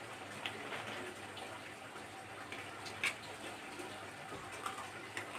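A person eating noodles from a plate with a fork: scattered small clicks of the fork against the plate and mouth sounds over a steady hiss, with one sharper click about three seconds in.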